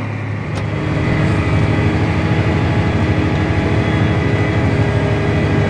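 John Deere 8310R tractor engine running steadily under the drawbar load of a 7-bottom plow, heard from inside the cab. There is a single click about half a second in, and the engine gets a little louder from about a second in.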